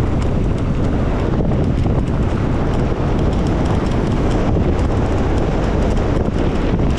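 Wind buffeting the microphone of a camera on a mountain bike at speed on a dirt trail, a steady loud rush mixed with the rattle and many small clicks of tyres and bike over the ground.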